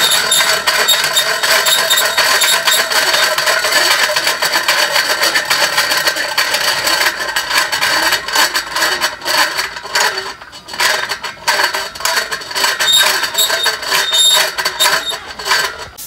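Hand-crank cable winch on a chicken barn wall being cranked to move the tarp curtain, its ratchet clicking rapidly over a steady whine, with a few short pauses in the second half.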